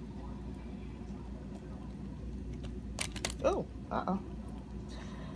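A few light clicks of a utensil while canned mushrooms are spooned onto a pizza, followed by two short vocal sounds, the first falling in pitch. A steady low hum underneath.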